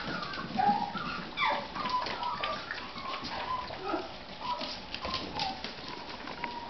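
Yorkshire Terrier puppies making short, high whimpers and yips as they play, some falling in pitch. Light clicks of claws on a tile floor run underneath.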